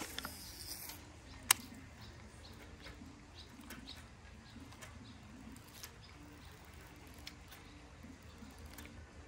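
A baitcasting rod is cast: a short hiss as line pays off the reel, then a sharp click about a second and a half in as the reel is engaged, followed by faint ticks during a slow retrieve. Low bird cooing runs underneath.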